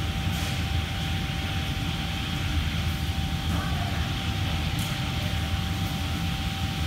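Steady mechanical drone of kitchen fans and ventilation, a low rumble with a constant thin whine over it.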